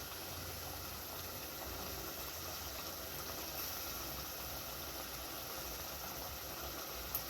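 Pot of onions, potatoes, beef and tomato paste frying in oil, a steady sizzle; a light tick near the end.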